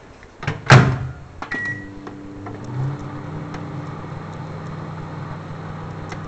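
Microwave oven door shut with a loud knock, a short keypad beep, then the oven starting and running with a steady hum.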